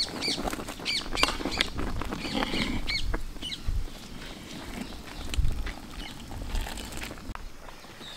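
Spaghetti being stirred with a metal ladle in a large aluminium pot of boiling water: a patter of bubbling with scattered clicks and scrapes. Birds chirp in short rising-and-falling calls through the first half.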